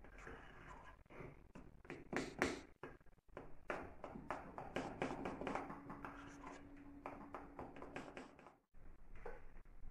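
Irregular tapping and handling sounds of food preparation by hand, with the sharpest knocks about two seconds in.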